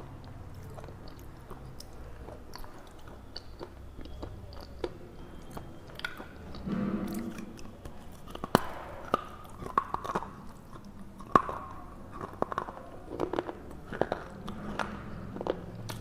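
Red slate bar being bitten and crunched dry in the mouth. Soft chewing at first; from about halfway in come many sharp, irregular cracks as the bar breaks between the teeth.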